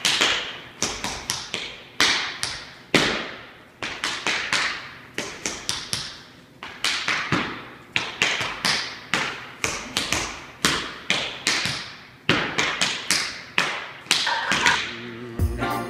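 Tap shoes striking a wooden floor in a solo tap dance, the taps in uneven rhythmic groups that beat out the rhythm of a holiday song, each tap ringing briefly in the room. Music comes in just before the end.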